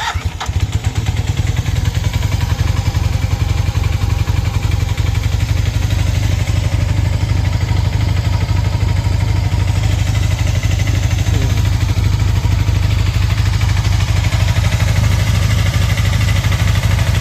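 Honda CB 450 motorcycle's parallel-twin engine running steadily at idle, a loud, even, fast low pulsing with no revving.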